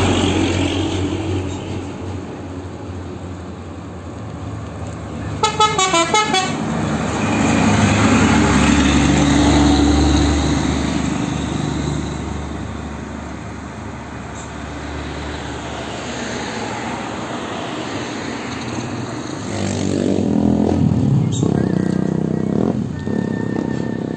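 Heavy trucks passing close by one after another, their diesel engines running. About five seconds in, a vehicle's multi-tone musical horn sounds a quick run of short stepped notes.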